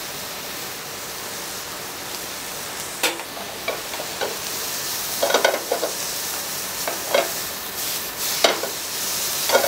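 Sliced onions and chopped prosciutto sizzling steadily in a frying pan over a gas flame. From about three seconds in, a wooden spatula scrapes and taps the pan about half a dozen times as they are stirred.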